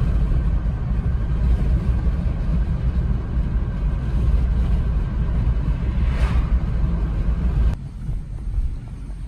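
A steady, heavy low rumble that drops off abruptly about a second and a half before the end.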